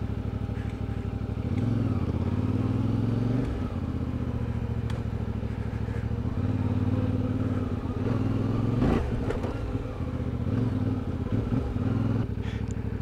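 CFMOTO 450MT's parallel-twin engine running at low revs, the throttle opened and eased off several times in swells of a few seconds during slow, tight turns, with a short sharp knock about nine seconds in. The revs settle back down about twelve seconds in.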